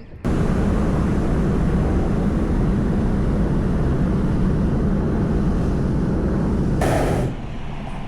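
Hot-air balloon's propane burner firing: a loud, steady rushing blast that starts suddenly and cuts back about seven seconds in, with a brief sharper hiss just before.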